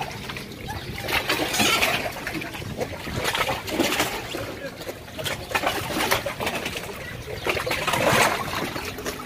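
Sea water splashing and washing in irregular surges every second or two, with doves cooing.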